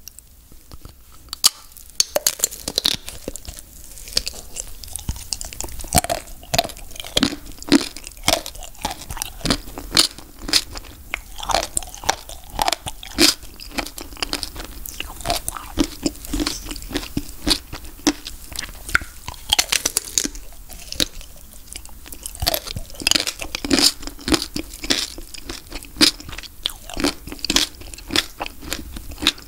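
Bites into a chocolate-coated Magnum ice cream bar, its crisp chocolate shell cracking in many sharp crunches, with chewing of the shell and ice cream between bites. The crunching starts about a second and a half in and goes on in dense clusters.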